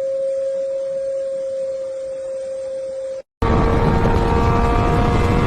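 A single steady tone held for about three seconds and cut off suddenly. After a moment's silence, a louder noisy sound with several steady tones in it begins.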